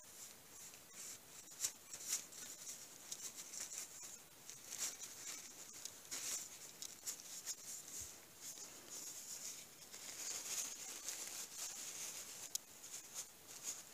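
Hands handling small wooden craft pieces: irregular scratchy rubbing with many small clicks and taps.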